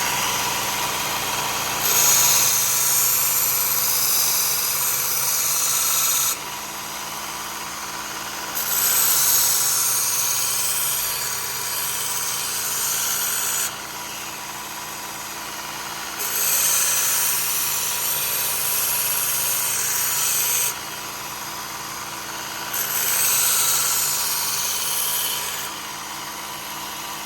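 Work Sharp Ken Onion Elite belt sharpener with its blade grinding attachment running steadily on a 120-grit 3M Cubitron belt, while a knife blade is drawn across the belt. Four separate sharpening passes each add a louder, harsh grinding hiss over the motor's running.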